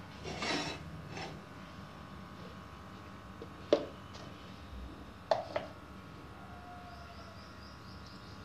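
Handling noises around a pan on a stove while oil heats: a brief rustle near the start, then a sharp click about a third of the way in. Two more clicks follow close together just past the middle, over a faint steady hum.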